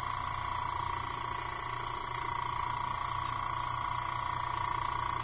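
Fujima single-cylinder mini airbrush compressor running with a steady, even hum as it fills its air tank, at a little over 20 PSI.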